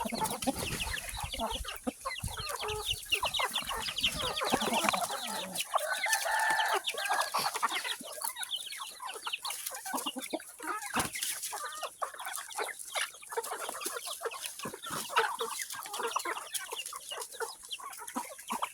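A flock of chickens clucking continuously, many short overlapping calls, with one longer held call about six seconds in.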